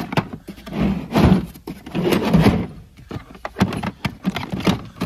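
Steel tool chest drawer sliding shut on its slides, with the tools inside shifting. It is followed by a series of sharp metal clicks and clunks.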